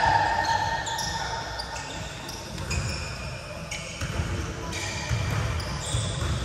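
A basketball game on a hardwood gym floor: the ball bouncing as it is dribbled, players' running footsteps, and a run of short, high sneaker squeaks of changing pitch.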